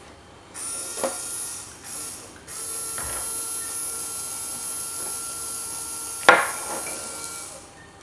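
Small Power Functions-style electric toy motor whirring: a short run about half a second in, then a steady run from about two and a half seconds in that stops near the end, with one sharp click about six seconds in.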